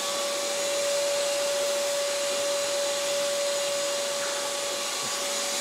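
Electric motor running at a steady speed, giving a constant whine over an airy hiss.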